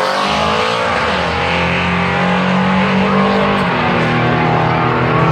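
Drag-racing pickup trucks running hard down the strip under full throttle, a loud steady engine drone whose pitch drops a step nearly four seconds in.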